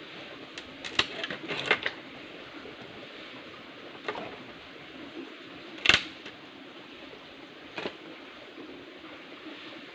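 A stick knocking and clattering against stream stones, about five irregular sharp knocks with the loudest about six seconds in, over the steady trickle of a shallow rocky stream.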